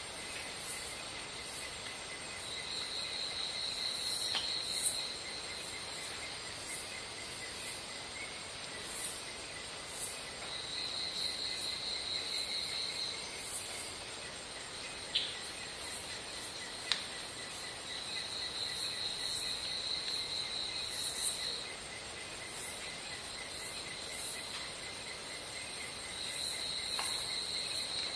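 Insects chirring in a steady high drone, with a pulsed trill that comes in for two or three seconds about every eight seconds, brief high chirps throughout, and a few sharp clicks.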